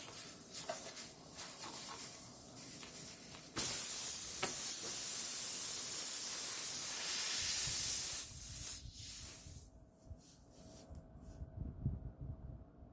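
Compressed air hissing steadily out of a punctured car tire while it is being plugged. The hiss gets suddenly louder a few seconds in, holds for about five seconds, then dies away near the end as the hole is sealed.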